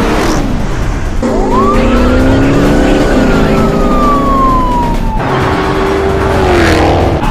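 Police siren wailing, rising quickly then falling slowly over several seconds, with a second falling sweep near the end, over steady car engine noise.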